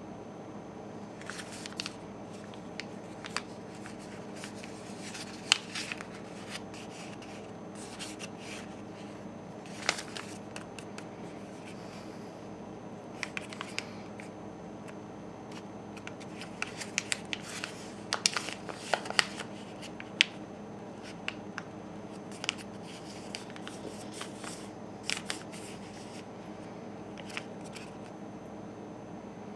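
A sheet of paper being folded and creased by hand on a wooden tabletop: scattered crinkles, rustles and sharp clicks, busiest about two thirds of the way through, over a steady low hum.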